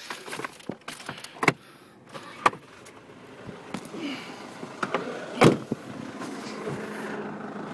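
Several knocks from the minibus door being opened and shut, then, from about five seconds in, the Ford Torneo's 2.0 TDCi four-cylinder diesel engine idling steadily after being started.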